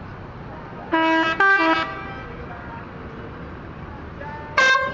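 Tour-bus telolet horn playing a short tune of two stepped multi-note chords about a second in, then a second short blast near the end.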